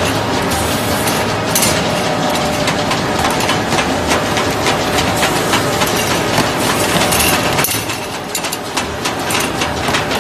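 HRB-2600 automatic folder gluer running at production speed: a dense, loud mechanical clatter of belts and rollers with rapid ticking as corrugated carton blanks are folded and fed into the delivery stack. It eases off slightly near the end.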